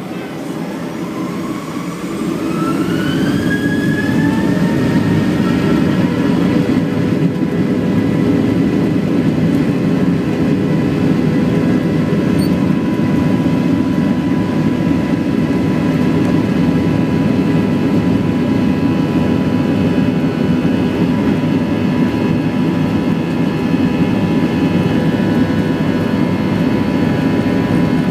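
Boeing 737-900ER's CFM56-7B turbofans spooling up to takeoff thrust: several whining tones rise in pitch over the first few seconds and the sound grows louder. The engines then hold a steady, loud, whining run through the takeoff roll, heard from inside the cabin.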